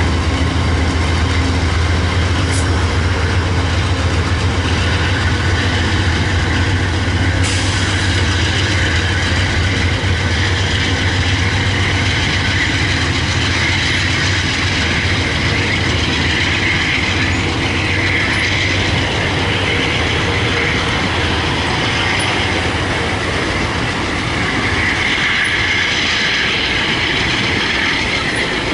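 Amtrak Superliner passenger cars rolling past on the rails, a loud and steady rolling rumble. A low drone fades out about halfway, while a higher whine from the wheels grows in the second half.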